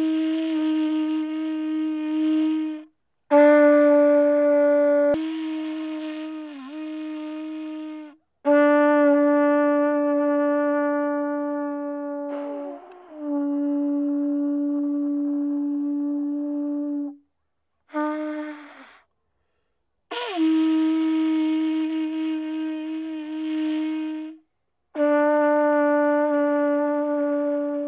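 Andean horn trumpet blown in a string of long single-note blasts, each a few seconds long with a sharp start and a short one in the middle. It is the call that summons the community to its assembly.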